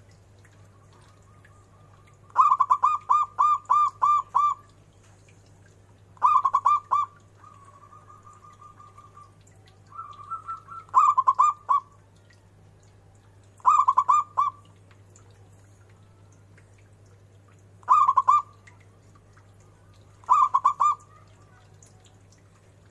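Local Indonesian zebra dove (perkutut) singing: six phrases of rapid staccato coos, the first the longest at about seven notes, the rest shorter bursts of a few notes with pauses of a few seconds between.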